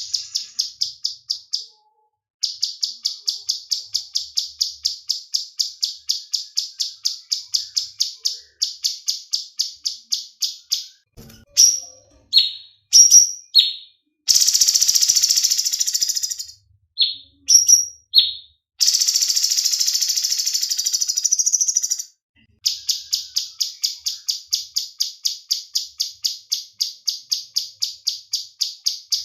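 Cucak cungkok bird calls: a fast, even run of high chips, about five a second, breaking in the middle into a few loud slurred notes and two long harsh buzzy rasps, then back to the chips.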